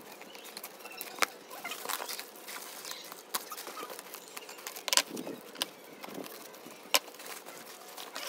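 Crinkling and rustling of a tape-wrapped, plastic-covered parcel as it is handled and cut open with scissors, with scattered sharp clicks and snips; the loudest come about one, five and seven seconds in.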